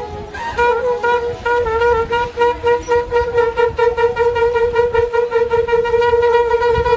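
Conch shells (shankha) blown together by three priests in a long sustained ritual blast. A brief note at the start, a short break, then one steady, slightly wavering held tone from about half a second in.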